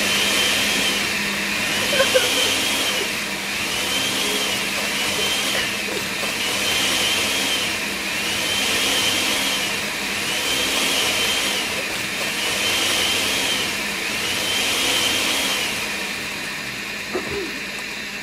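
Countertop kitchen blender running steadily as it purées salsa, its motor whine rising and falling about every two seconds.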